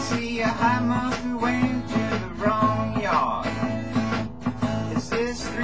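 Acoustic guitar strummed in a steady, rhythmic old-style blues accompaniment. A wavering melody line rises over it in a few spots.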